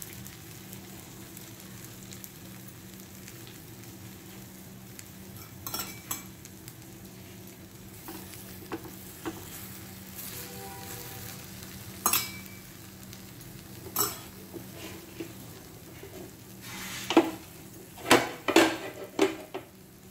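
Oil sizzling steadily on a hot flat griddle pan as rolled wraps fry on it, with a few sharp clicks and taps of a spoon and the wraps against the pan, a quick cluster of them near the end.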